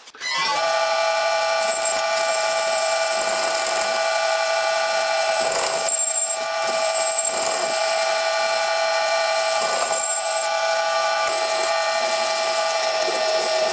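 Vintage metal lathe spinning up and running at steady speed, its motor and spindle giving a constant whine, while an HSS tool bit turns down a metal workpiece with brief high squeals now and then.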